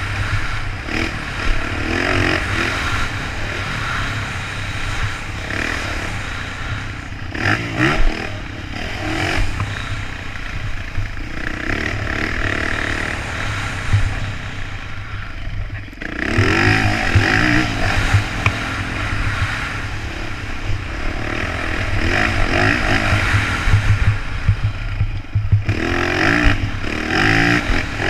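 Dirt bike engine revving hard and easing off again and again, its pitch rising and falling as the rider works through the gears on a dirt track, heard from a helmet camera. A brief dip in the engine sound about a third of the way from the end, before it comes back strongly.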